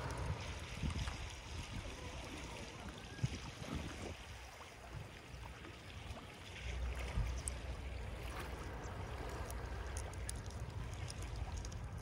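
Small waves lapping against concrete seawall steps, with gusts of wind buffeting the microphone that grow stronger partway through.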